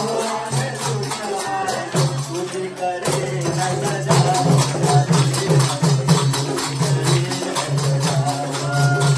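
A group singing a Gujarati devotional hymn to several tabla drums, with hand-clapping and jingling percussion keeping a steady beat.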